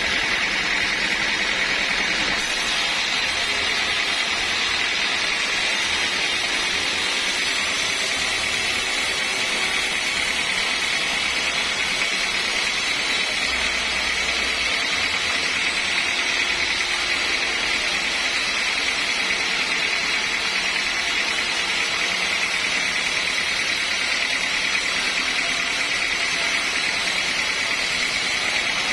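Sawmill machinery running steadily: a constant mechanical noise with a high whine that holds the same level throughout.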